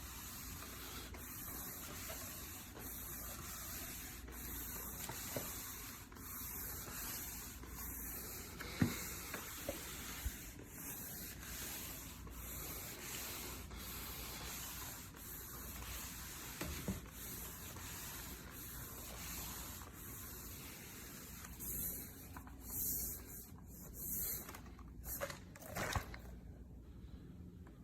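Shark VacMop Pro cordless vacuum mop running while its pad is pushed back and forth over the floor, a steady hiss swelling with each stroke. It stops shortly before the end.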